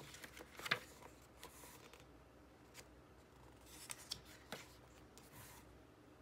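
Pages of a photo book being turned by hand: a few faint paper rustles and flaps, the loudest about a second in and a cluster around four seconds in.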